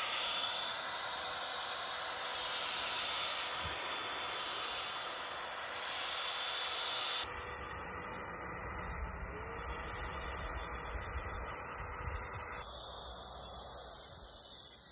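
Handheld electric paint sprayer running as it sprays lacquer onto timber beams: a steady hiss of air and atomised spray over a faint steady motor tone. It gets quieter near the end.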